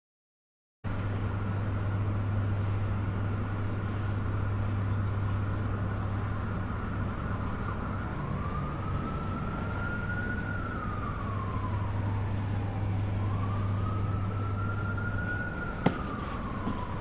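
A steady low vehicle hum begins about a second in. About halfway through, a siren starts wailing, rising and falling slowly twice. A single sharp click comes near the end.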